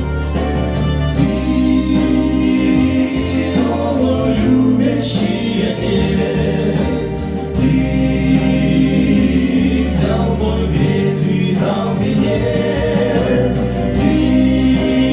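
A church vocal group singing a Russian gospel hymn in held, sustained notes over a steady low bass.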